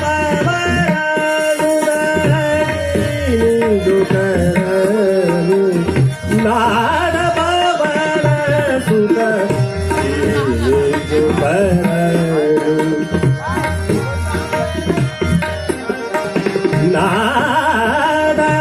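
Hindustani classical vocal in raga Hamsadhwani: a male singer's gliding, ornamented phrases over held harmonium notes, with tabla keeping the beat.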